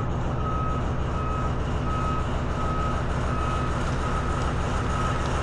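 A reversing alarm beeping at one steady pitch, about every three-quarters of a second, over the steady low rumble of a heavy diesel engine running.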